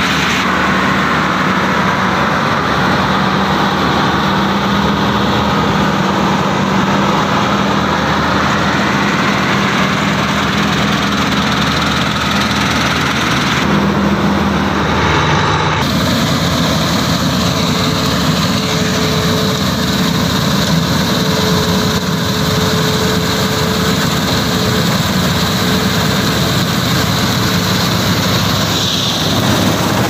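New Holland combine harvester running while it cuts rice: a loud, steady drone of engine and header machinery. The sound changes abruptly about halfway through and again near the end.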